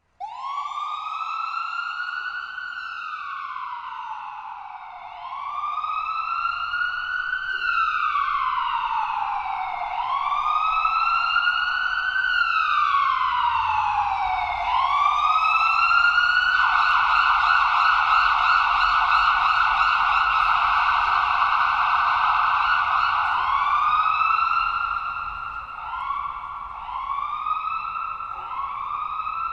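Electronic ambulance siren sounding a slow wail, its pitch rising and falling three times over about five seconds each. About halfway through it switches to a fast, rapidly wavering tone for several seconds, then near the end it returns to shorter, quicker rising sweeps.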